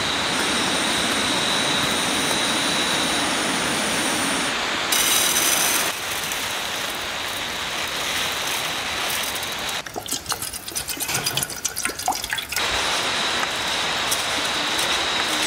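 Steady rush of falling water from a waterfall and stream. About ten seconds in, dry rice grains patter into a cooking pot for a couple of seconds as a dense run of small clicks.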